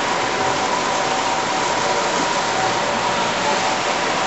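Standard Gauge tinplate toy trains running on three-rail tinplate track: a steady, dense rolling noise of metal wheels on the rails, with a faint steady whine.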